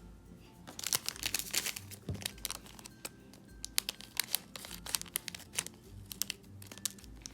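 Small plastic powder packet from a DIY candy kit crinkling as it is torn open and handled, in a run of sharp rustles and clicks. Faint background music underneath.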